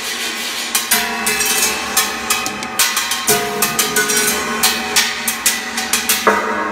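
Drumsticks playing quick, irregular strikes on a homemade percussion rig: a carved wooden box drum giving short pitched knocks, and a large metal sheet strung with coil springs ringing underneath. The first second is only the ringing wash before the strikes start.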